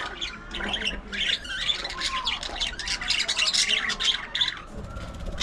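A flock of budgerigars chattering: many rapid, overlapping chirps and squawks mixed with warbling notes.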